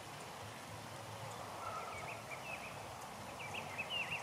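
Wild birds calling in short, quickly rising and falling chirps, in one burst about halfway through and another near the end, over a steady faint outdoor background noise.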